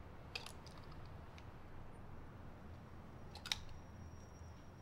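Two sharp clicks from a small mint box being handled, about half a second in and again near the end, over a low steady hum.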